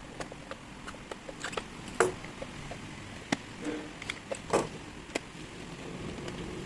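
Irregular light clicks and taps of small parts and hand tools being handled during a repair, with a sharper knock about two seconds in and another, slightly ringing, about four and a half seconds in.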